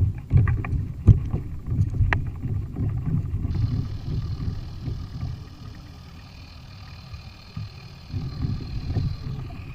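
Gusting wind rumble and water noise aboard a fishing kayak, with several sharp knocks in the first two seconds. A faint steady hum comes in about three and a half seconds in.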